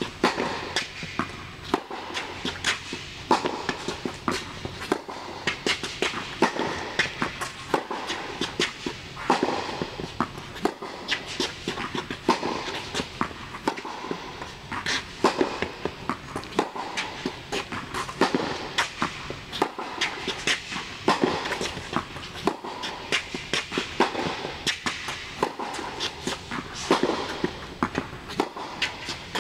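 Tennis rally on an indoor court: repeated sharp pops of the ball off the racket strings and bouncing on the court, with footsteps on the court surface.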